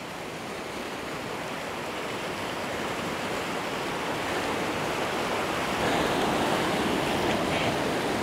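Whitewater of a small river rapid rushing over rocks, a steady dense rush that grows gradually louder.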